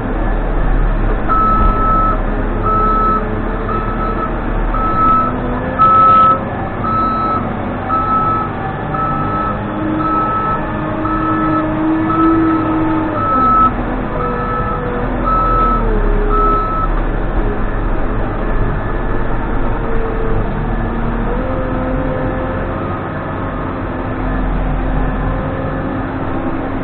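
Case 580N backhoe's diesel engine running, its pitch rising and falling as the machine works. The reverse alarm beeps at a steady rate of about one beep a second, stopping about two-thirds of the way through.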